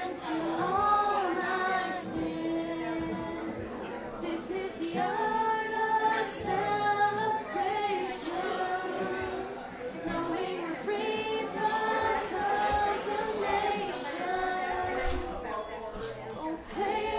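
Acoustic guitar played with singing, a melody sung in long held notes throughout.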